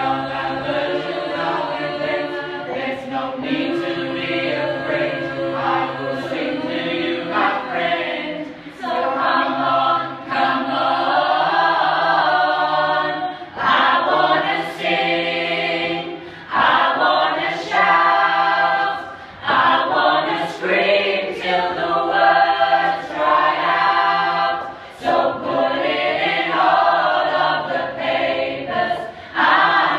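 A group of voices singing together like a choir, in phrases with short breaks between them.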